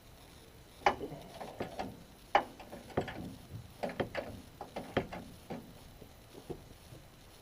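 Irregular clicks and knocks of hand tools and metal parts as the bumper's mounting bolts are worked, a quick cluster of sharp clicks spread over several seconds and fading out near the end.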